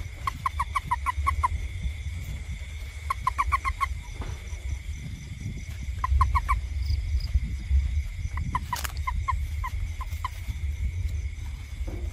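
Short bursts of quick chirping animal calls, four to eight notes each, repeating every few seconds over a steady high insect drone and a low rumble. A single sharp crackle comes about nine seconds in.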